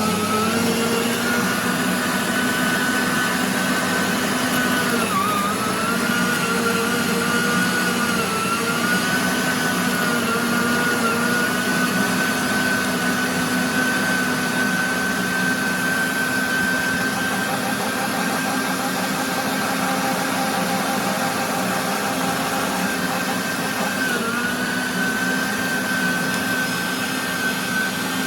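Electric meat grinder's motor running with a steady whine, its pitch dipping briefly about five seconds in and again near the end.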